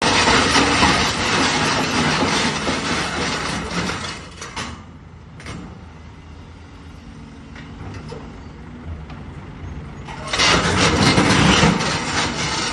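Excavator engine working hard with knocking and clatter, most likely its tracks and machinery as it climbs onto a self-loader truck. There are two loud spells, one at the start and one from about ten seconds in, with the engine running quieter for several seconds in between.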